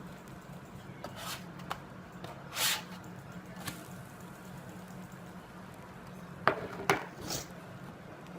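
Household handling sounds over a steady low hum: a few short swishes and, near the end, two sharp clicks, like dishes or utensils being handled.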